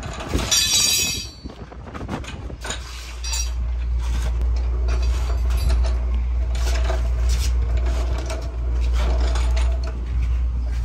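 Steel tools and parts clinking and knocking during work on a truck's differential, with one sharp metallic clink just under a second in. From about three seconds in, a steady low hum from running machinery sits underneath.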